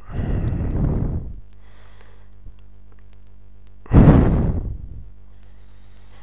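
A man breathing out heavily into a close microphone, twice; the second breath, about four seconds in, is louder.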